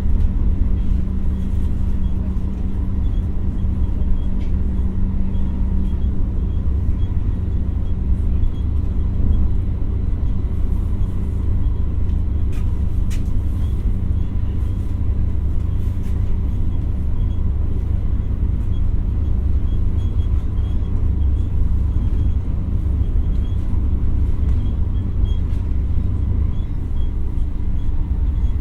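Running sound inside an X60 electric commuter train at steady speed: a constant low rumble of wheels on track with a faint steady tone above it. A faint click is heard about halfway through.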